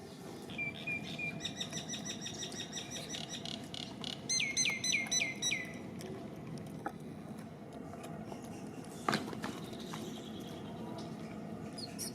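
A run of short, high chirping animal calls, a few quick notes first and then a rapid series, ending in about five louder calls that each drop in pitch. A single sharp click follows a few seconds later.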